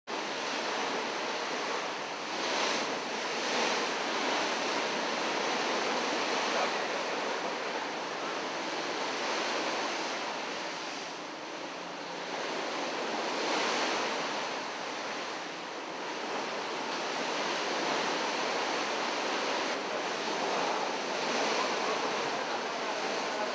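Open-sea waves and wind rushing steadily, swelling and easing every few seconds, as heard from aboard a ferry at sea; no bird calls.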